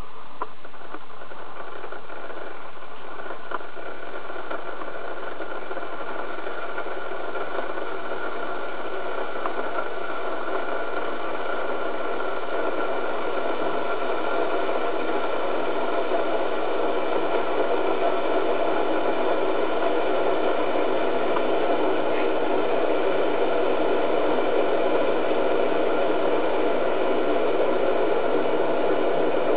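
Philips Senseo coffee maker heating its water tank after being switched back on: a steady hiss that grows slowly louder as the water heats.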